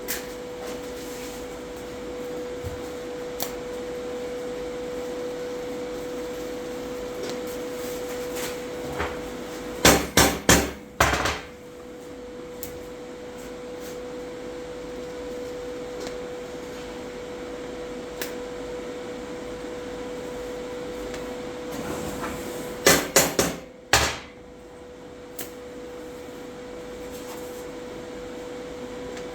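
Hammer strikes on metal in two quick bursts of about four blows each, over a steady electrical hum.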